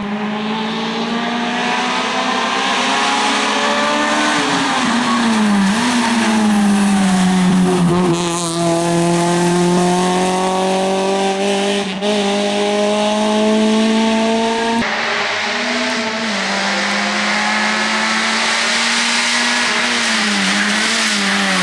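Honda Civic rally car's engine running hard at high revs on a rally stage, its pitch climbing slowly over long stretches and dropping several times as the driver lifts, brakes or changes gear.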